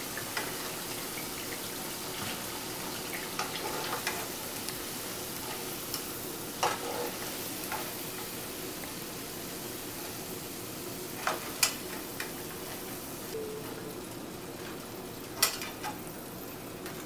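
Pakodas (cabbage-batter fritters) sizzling steadily in hot oil in a non-stick wok, as a metal spoon lifts the fried pieces out. The spoon hits the pan in a few sharp clinks, the loudest about a third of the way in and twice close together about two-thirds in.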